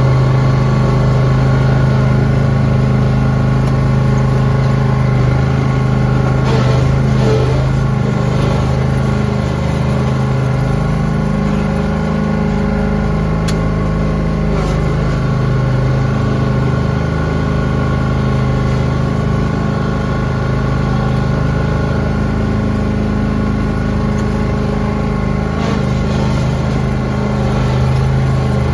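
Lawn tractor engine running steadily while plowing snow, its pitch sagging a little for a few seconds midway.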